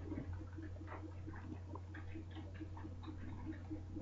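Quiet background of a home recording: a steady low electrical hum with a few faint small ticks.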